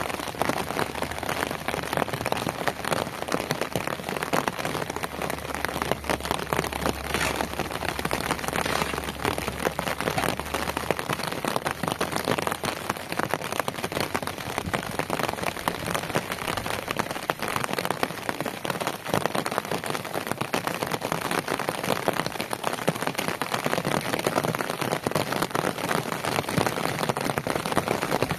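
Steady rain falling on wet ground, a dense, even hiss of drops. A low hum lies under it for roughly the first ten seconds.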